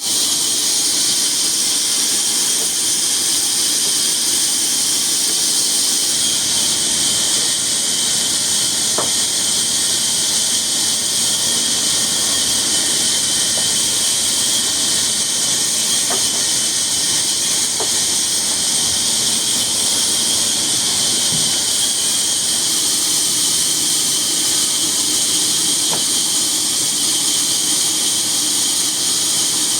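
A steady, high-pitched hiss that does not change, with a few faint ticks.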